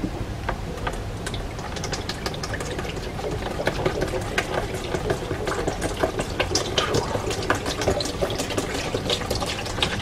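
Old petrol poured in a thin stream from a metal can into a plastic parts tray, splashing and trickling steadily.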